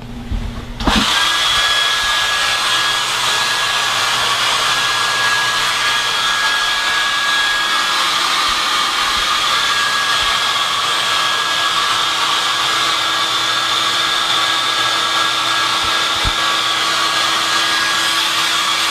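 Handheld hairdryer switching on about a second in, then blowing steadily with an even hiss, heating a sneaker's visible air unit to clear the fogging inside it.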